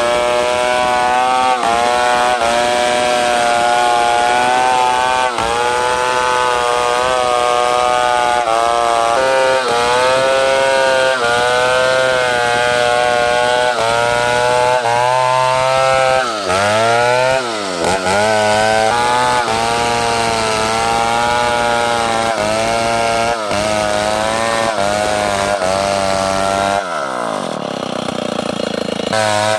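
Large two-stroke chainsaw running at high revs while cutting a big bengkirai hardwood log, its pitch wavering under load. About halfway through, the revs dip sharply and climb back. Near the end the engine falls toward idle and then revs up again.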